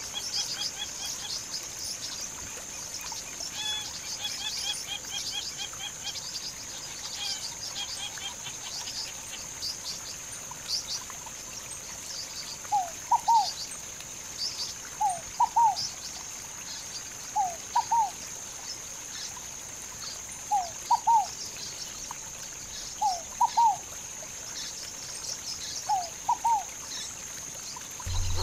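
Birds chirping: many short high chirps over a steady high-pitched drone. About halfway through, a louder two-note call at a lower pitch starts and repeats six times, about every two and a half seconds.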